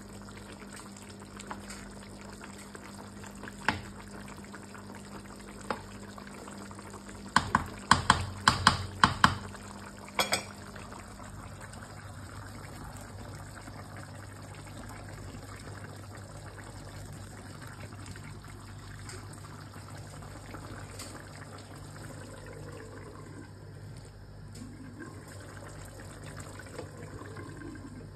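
Beef rendang simmering in a wide pan, a steady bubbling hiss. About a quarter of the way in comes a quick run of about eight sharp knocks of a wooden spatula against the pan, after two single knocks earlier.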